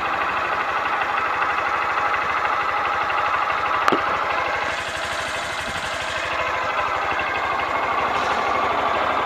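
Honda CBF125's air-cooled single-cylinder four-stroke engine idling steadily, heard close to its exhaust silencer. There is a single sharp click about four seconds in.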